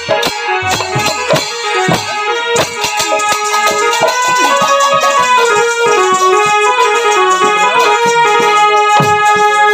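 Instrumental folk-music interlude: a keyboard melody of held, stepping notes over strokes of a dhol drum and a hand cymbal, with no singing.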